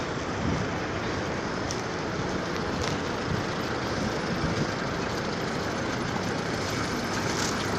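Steady outdoor street noise: an even, broad rumble and hiss with no distinct event.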